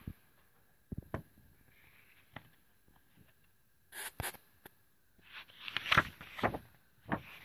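Hands handling the pages of a picture book: scattered soft taps and paper rustles, with a louder cluster of rustling about six seconds in.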